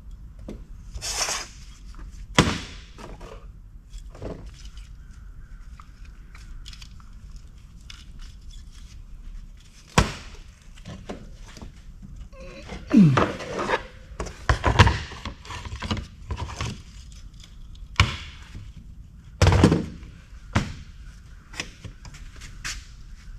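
Hammer driving a chisel into scrap metal. Single sharp blows come several seconds apart, with rattling and scraping of metal pieces around the middle and near the end.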